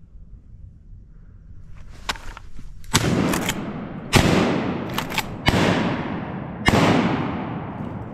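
A volley of shotgun fire from two hunters shooting at incoming ducks: four loud blasts about a second apart, with several fainter, sharper cracks between them. Each loud blast trails off in a long echo.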